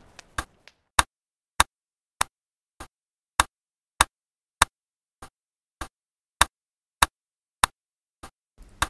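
Steady, sharp ticks, a metronome-like beat of about one every 0.6 seconds, some ticks softer than others, with dead silence between them.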